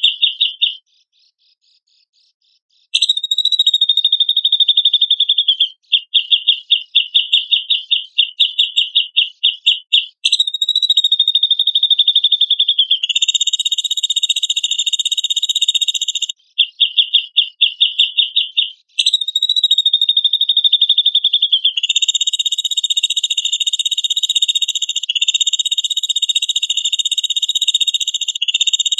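Cucak jenggot (grey-cheeked bulbul) song played as a training recording: high-pitched phrases of rapid pulsed notes, about four or five a second, alternate with longer steady buzzy trills lasting several seconds. The phrases are separated by short breaks, the longest about two seconds near the start.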